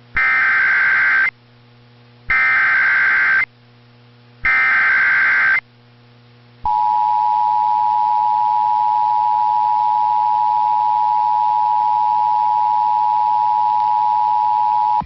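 Emergency Alert System tones: three one-second bursts of SAME digital header data, then the two-tone EAS attention signal (853 and 960 Hz together) starting about two-thirds of a second past the sixth second and sounding steadily for about eight seconds.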